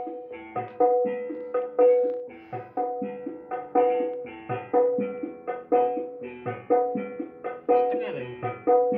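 Percussive drum music, hand-drum strikes a few times a second over a ringing pitched note, played through an RDW NR 8004 MK3 four-channel power amplifier into a mid-high horn and a 12-inch speaker as a test.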